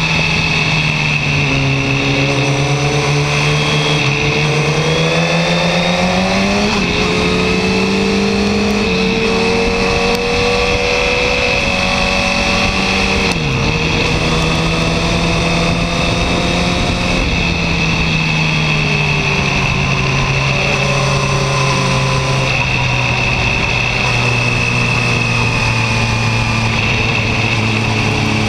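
Yamaha R1's inline-four engine heard from an onboard camera, its pitch falling and rising several times as the throttle is rolled off and on, with a brief sharp dip about halfway through. It settles to a lower, steady note near the end.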